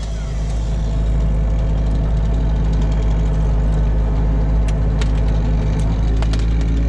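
Excavator's diesel engine running steadily, with a few sharp clicks in the second half.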